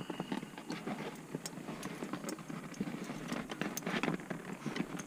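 Irregular light clicks, taps and rustling from hands and tools handling parts at close range, with no steady tone.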